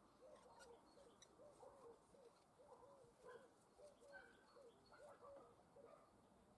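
Near silence with faint, short rising-and-falling animal calls repeating about twice a second, and a few light clicks.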